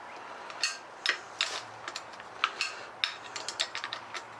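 Irregular light clicks and clinks of hand tools and metal parts being handled, with a quick run of small clicks about three seconds in.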